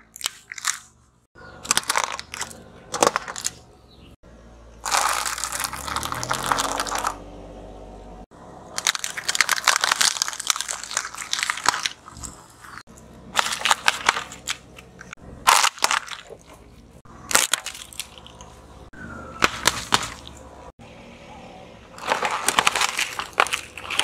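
A car tyre rolling over and crushing brittle hard candy, plastic straws and cardboard candy boxes: a run of separate crunches, cracks and crackling of plastic and packaging. A low rising hum sits under one long stretch of crunching about five seconds in.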